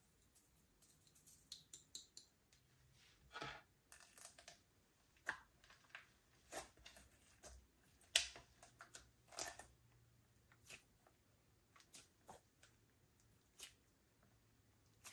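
Slime being mixed and worked, giving faint, irregular sticky clicks and small crackling pops scattered throughout.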